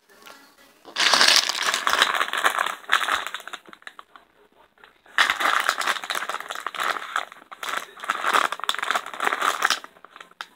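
Plastic LEGO polybag crinkling as it is handled, in two long stretches with a short pause about four seconds in.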